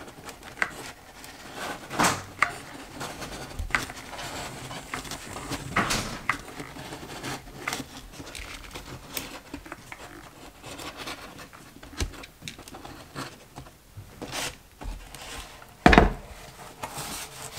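Irregular small clicks and taps of a hot glue gun and foam board being handled while a glue bead is run along a seam, with one louder knock near the end.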